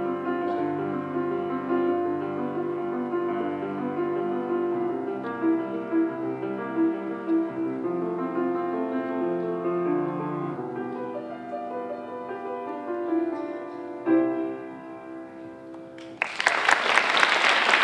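Grand piano played solo. The final chord about fourteen seconds in rings and fades away, then the audience breaks into applause near the end.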